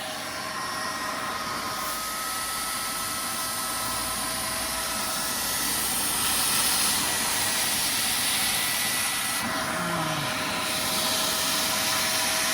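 Carpet spot cleaner (wet vac) running with a steady rushing suction noise and a thin motor whine as it works over wet car carpet. The note shifts a little about halfway through and again near the end.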